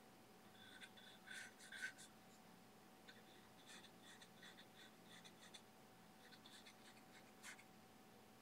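Faint scratchy strokes of a #4 natural hog-bristle filbert brush laying oil paint onto a smooth, gesso-primed aluminum composite panel. The strokes come in short irregular clusters, the loudest about two seconds in.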